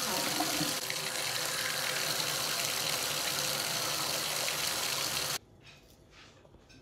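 Shower running: a steady, loud hiss of water spray, with a short whine at the start as the water comes on, cut off abruptly about five seconds in.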